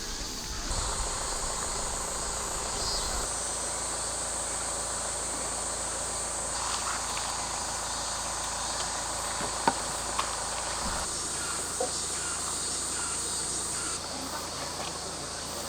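Insects in the surrounding forest, chirping in a steady high-pitched chorus that thins out near the end, with a few soft clicks.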